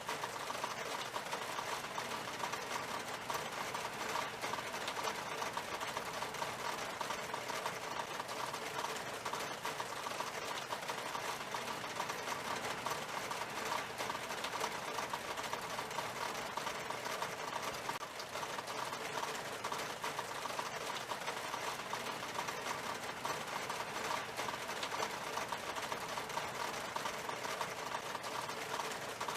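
Rain falling on window glass: a steady, unchanging wash of many quick drop ticks.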